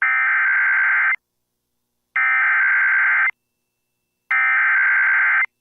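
Emergency Alert System SAME header: three bursts of digital data tones, each a little over a second long with about a second's pause between. The code announces the start of an alert message.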